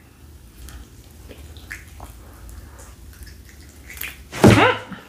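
Wet mouth sounds from eating saucy bone-in chicken wings by hand: soft lip smacks and finger-licking, with one louder, brief mouth sound about four and a half seconds in as she bites into a wing.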